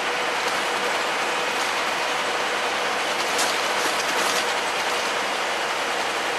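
Double-decker diesel bus idling at a stop under cover: a steady, noisy engine and fan sound with a faint steady hum, and a few light clicks and rattles about three and a half to four and a half seconds in.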